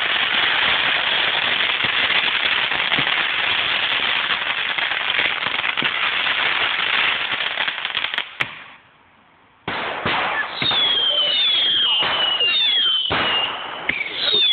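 A ground firework fountain hissing and crackling steadily for about eight seconds, then cutting off. After a second's pause, whistling fireworks go off: a string of shrill whistles, each falling in pitch, about one a second, with sharp cracks among them.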